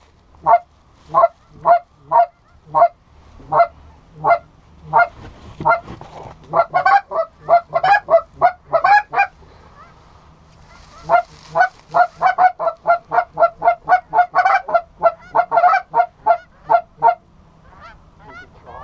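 Geese honking: a long run of short, loud honks in quick series, about two a second, with a brief pause about ten seconds in before a denser run resumes.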